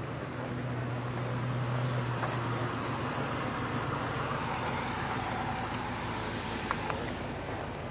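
A motor vehicle's engine running with a steady low hum, loudest in the first couple of seconds and then fading, over the general noise of an outdoor car lot. Two faint clicks near the end.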